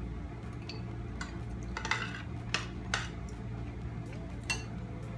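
Metal spoons and forks clinking against ceramic plates and bowls while eating: a handful of separate light clicks over a steady low hum.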